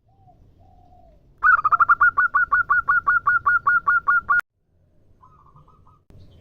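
Female zebra dove (perkutut) calling: a rapid run of short, even cooing notes, about five a second for three seconds, that cuts off abruptly. It is preceded by a couple of faint soft coos and followed by a short faint burst of notes.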